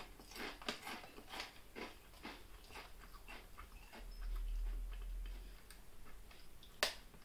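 Close-up crunching of a wavy-cut potato chip being chewed, about two crunches a second, fading over the first few seconds. A low rumble follows about four seconds in, and one sharper crackle comes near the end.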